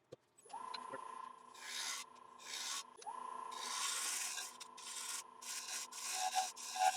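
Wood lathe running with a steady whine while a scraper is drawn across the inside of a spinning Iroko bowl, making a series of hissing scraping cuts.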